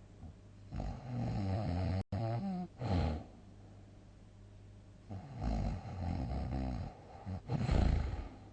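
A person snoring loudly: two heavy snoring bouts, each a string of rough, vibrating snores, starting about one second in and about five seconds in. The sound cuts out for an instant about two seconds in.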